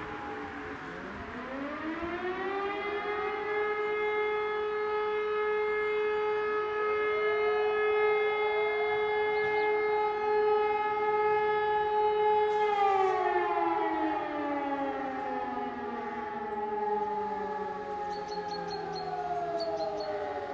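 Electromechanical E57 motor sirens sounding the fire brigade alarm. The nearest one winds up about a second in, holds a steady tone for roughly ten seconds, then winds down slowly through the rest. Other sirens further off rise and fall out of step with it.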